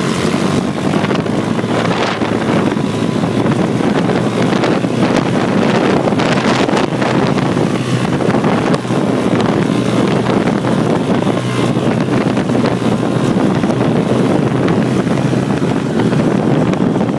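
Hammerhead off-road buggy's engine running steadily while driving, with heavy wind noise on the microphone.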